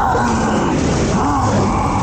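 Steady wind rush and riding noise picked up by a helmet-mounted camera on a Sur-Ron electric dirt bike moving at speed.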